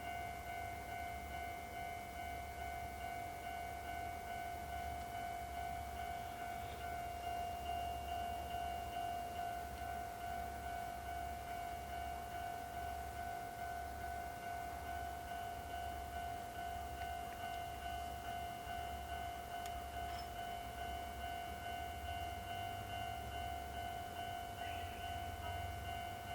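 Japanese railway level crossing warning bell ringing steadily and continuously.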